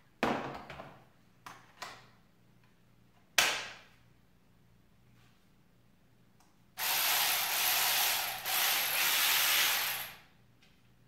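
Plastic clacks and clicks of a battery pack being pulled from and snapped into a XINGDI cordless 3/8-inch electric ratchet, followed a few seconds later by the ratchet's motor running for about three seconds with a brief break in the middle. The tool is running on the battery taken from the other model.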